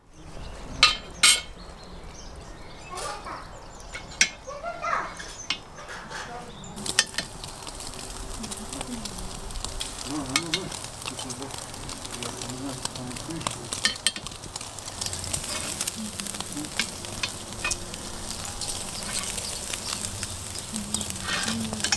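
Meat shashlik skewers sizzling over charcoal, fat crackling on the embers, the sizzle growing louder about seven seconds in. A couple of sharp clicks about a second in.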